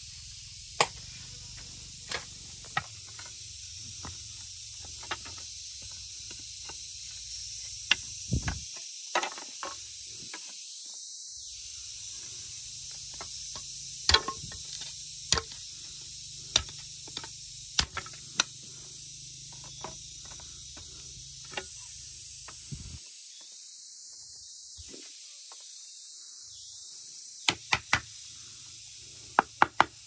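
Irregular sharp knocks of hand-tool strikes: a hoe biting into earth, then a machete chopping and splitting bamboo slats, some blows coming in quick clusters. Under them runs a steady high insect chorus.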